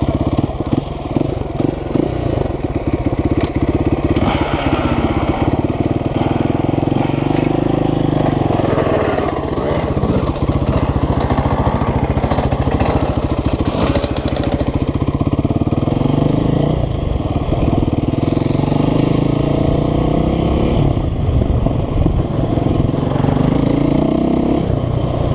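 KTM 530 EXC single-cylinder four-stroke enduro engine running through its aftermarket CRD exhaust while being ridden, the engine speed rising and falling several times.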